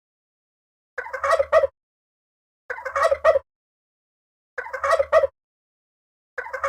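Turkey gobbling: four short rattling gobbles, each under a second long, about every two seconds, with dead silence between.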